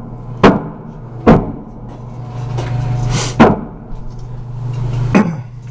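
Four gunshots on a shooting range, irregularly spaced, each a sharp crack with a short echo, over a steady low hum.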